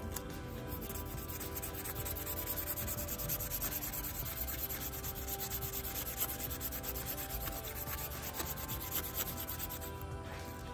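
Strip of emery cloth drawn quickly back and forth against the commutator of a Bosch 24 V 5.4 kW starter motor: a steady scratchy rasping that stops shortly before the end, as the commutator is cleaned during the starter's repair.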